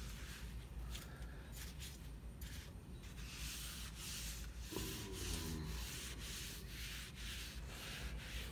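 An oily paper towel held in tongs wiped back and forth across the hot steel top of a Blackstone griddle, a soft rubbing hiss with each stroke, about two strokes a second, as a thin seasoning coat of oil is spread over it.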